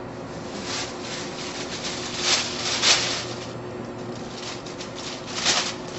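Pen scratching across paper on a hard counter as a form is signed, in a series of short scratchy strokes, the loudest about two to three seconds in and again near the end.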